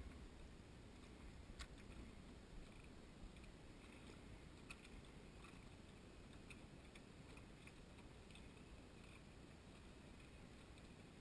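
Near silence: faint open-air lake ambience, a soft low rumble with scattered faint ticks and clicks.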